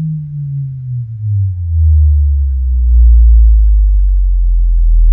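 A sine test tone from an online tone generator, played through a DIY ported subwoofer with a 24-inch Pierce Audio 4K Neo driver. It glides down in pitch, then holds a loud, deep, steady bass tone from about two seconds in, with no chuffing from the ports.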